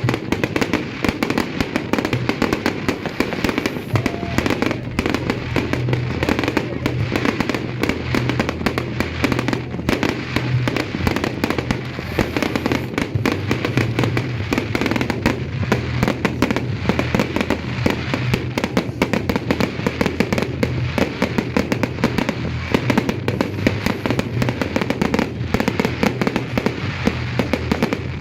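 Fireworks and firecrackers going off nonstop: a dense, unbroken rattle of bangs and crackles, with music playing underneath.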